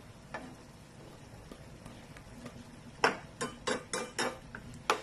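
Metal ladle clinking against a metal cooking pan while stirring beef in simmering liquid: a single clink about half a second in, then a quick run of about six clinks from about three seconds in.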